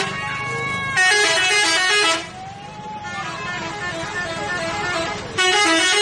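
A bus's multi-tone musical 'telolet' horn plays short tunes of stepped notes. It sounds loudly about a second in for about a second, then again near the end, with softer horn notes and traffic noise in between.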